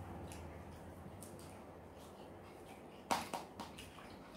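Quiet close-up eating sounds of hand-eating fried rice: soft mouth clicks and smacks and fingers working rice on a plate, with a sharp click about three seconds in followed by a few smaller ones.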